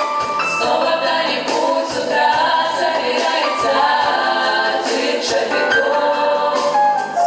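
Vocal ensemble singing in close harmony, largely a cappella, with several voices holding and moving between sustained notes.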